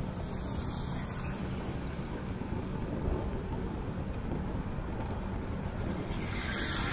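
Motorcycle riding along a road: a steady low engine hum with wind and road noise on the microphone. A high hiss swells briefly near the start and again near the end.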